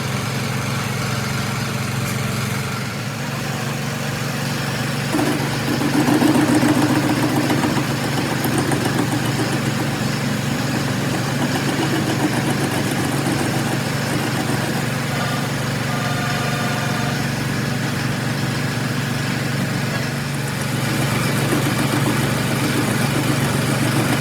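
A motor or engine running steadily with a constant hum, a little louder for a few seconds about a fifth of the way in.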